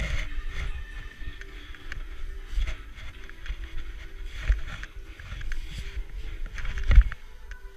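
Snowboarder tumbling in deep powder snow: wind rumbling on the camera microphone, with the board and gloves scraping and crunching through the snow, and one heavy thump about seven seconds in as the body lands.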